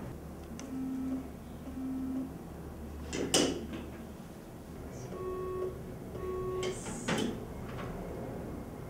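Short electronic beeps in pairs: two low beeps about a second apart near the start, then two higher beeps about five and six seconds in. Two sharp clicks or knocks fall between them.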